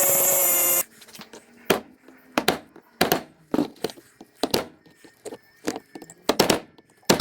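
A grinder grinding off the pins of a steel roller chain stops abruptly under a second in. It is followed by a string of sharp knocks, about one or two a second, as the cut chain is worked apart.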